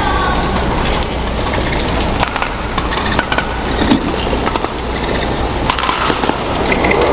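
Badminton rally: sharp racket strikes on the shuttlecock and short shoe squeaks on the court, over steady arena crowd noise that starts to swell near the end.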